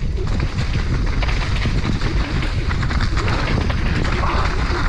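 Downhill mountain bike ridden fast over a rough dirt trail: tyres on loose dirt and roots with a dense run of rattles and knocks from the bike, under heavy wind rumble on the microphone.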